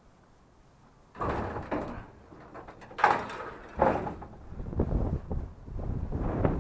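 A door sliding open with a rushing rumble, then two sharp knocks or slams, followed by an ongoing low rumble.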